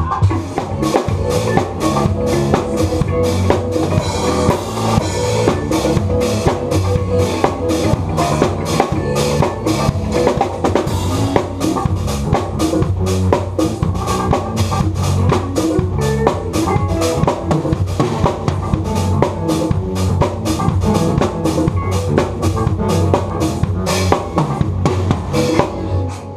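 A rock band playing live, the acoustic drum kit loudest: a dense, steady pattern of kick drum, snare and cymbal hits over electric guitars.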